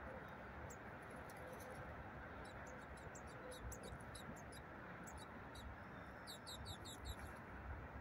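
Faint steady hum of distant road traffic, with small birds giving thin, high chirps and ticks scattered through it and a quick run of high chirps about six seconds in.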